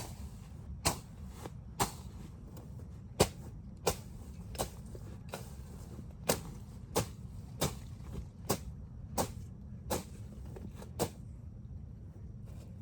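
A machete chopping and swishing through weeds and brush, stroke after stroke at about three strokes every two seconds, stopping near the end.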